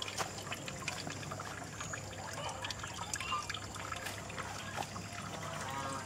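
Pond overflow water trickling and pouring through a hydraulic ram pump rig, steady throughout, with a few scattered clicks.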